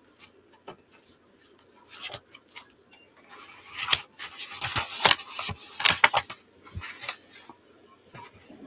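Paper being handled on a craft table: rustling and rubbing as a sheet is slid and smoothed flat by hand, with small ticks and taps. The rustling is busiest through the middle of the stretch.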